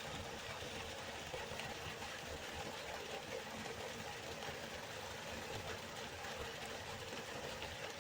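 Waterfall: the steady rushing roar of falling water, even and unbroken.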